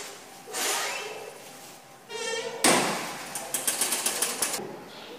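A front door being pulled shut: a short creak, then a loud bang about two and a half seconds in, followed by about a second of quick rattling metal clicks from its latch.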